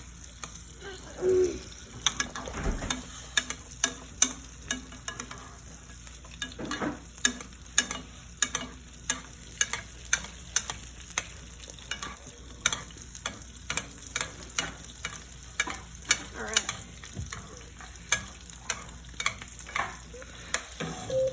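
Wagyu ribeye steak frying in butter with garlic and rosemary over lowered heat, sizzling steadily while it is basted, with frequent irregular sharp pops and crackles.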